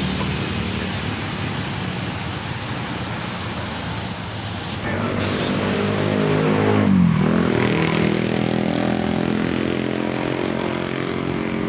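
Road traffic: a steady wash of vehicles and tyres, which changes abruptly about five seconds in. A passing vehicle's engine then comes close, its pitch dipping and rising again about seven seconds in, the loudest moment.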